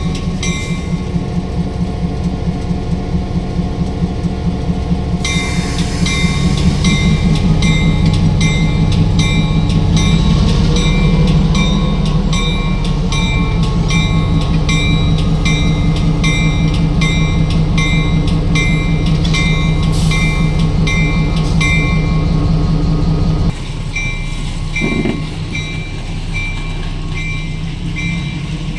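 Diesel locomotive of a work train running with a steady low drone, its bell ringing about once a second. The bell is louder through the middle of the stretch, and the engine sound drops a little near the end.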